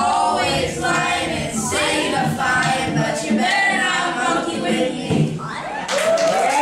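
A group of voices singing together without instruments; about six seconds in, applause breaks out.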